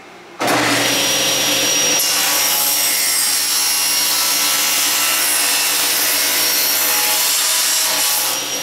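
Table saw with an 80-tooth Freud Diablo non-ferrous blade cutting dry through quarter-inch-wall square aluminum tube. The sound starts suddenly about half a second in and runs loud and steady with a high whine, easing slightly near the end.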